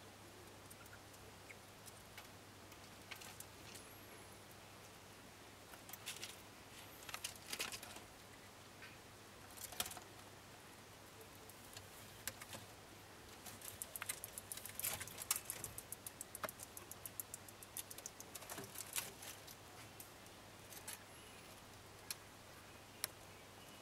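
Gray short-tailed opossums scrabbling about their enclosure: light scratches, clicks and rustles in wood-chip bedding and on a wire-mesh exercise wheel, coming in irregular flurries that are busiest in the middle. A faint steady low hum lies underneath.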